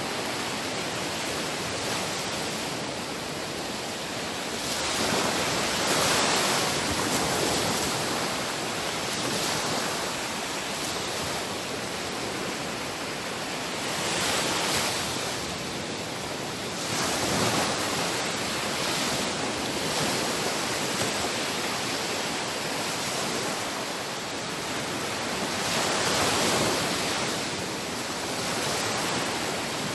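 Sea waves washing onto the shore: a continuous hiss of surf that swells louder as each wave breaks, about four times.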